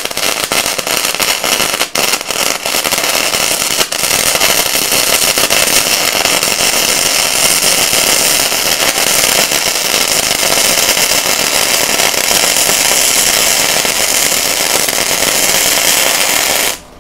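Flux-core (gasless MIG) welding arc crackling steadily as a bead is laid on a steel plate, with a few brief stutters in the first few seconds before it settles. The arc cuts off just before the end.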